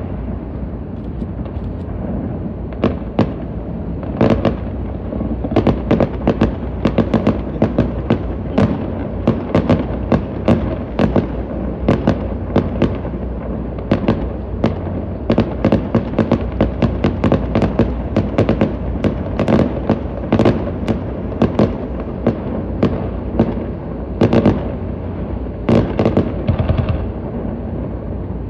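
Aerial fireworks display bursting in rapid succession, many sharp bangs and crackles a second over a continuous low rumble, heard across the harbour water.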